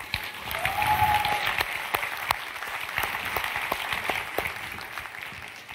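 Audience applauding in a large hall, the clapping swelling quickly at the start and slowly fading away near the end.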